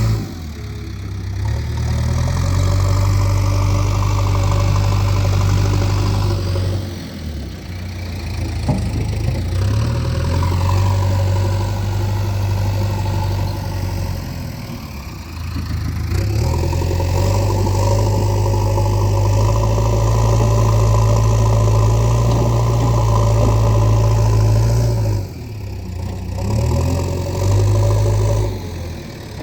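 Diesel engine of a JCB 3DX backhoe loader running under changing load as it digs and loads mud. The engine note holds steady, drops back briefly three times, about a quarter, a half and near the end of the way through, and picks up again.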